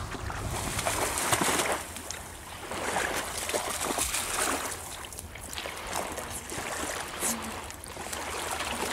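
Water splashing and sloshing as a dog swims and wades through shallow water, in uneven surges.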